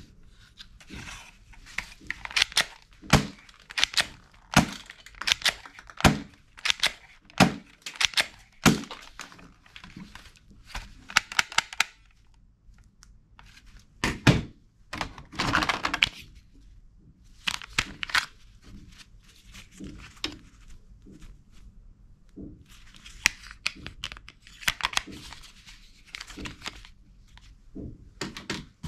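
Hard plastic toy guns knocking and clacking against each other as they are handled in a cardboard box. There is a dense run of sharp clacks for about twelve seconds, a longer scraping rattle a little after the middle, then scattered knocks.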